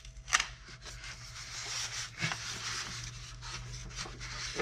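Craft knife scraping along the taped seam of a polystyrene foam box, then a continuous scratchy rubbing of foam as hands work at the lid. A sharp tick sounds just after the start.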